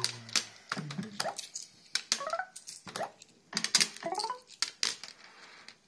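Barcrest MPU5 'Party Animal' fruit machine being played: a quick run of sharp clicks and clunks from its buttons and reels, with short rising electronic chirps from the machine about two seconds in and again near four seconds.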